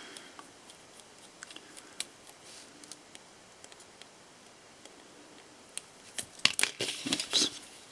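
Small metallic clicks and scrapes from handling a pocket-watch movement while its plate screws are taken out with a watchmaker's screwdriver, with a quick run of sharper clicks near the end.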